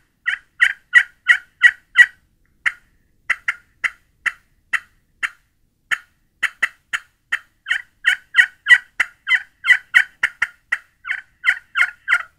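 All-metal pot call with a glass surface, played with a graphite striker, imitating hen turkey yelps: a series of short, sharp, loud notes in quick runs of about three a second, with a sparser, more scattered stretch of notes in the middle.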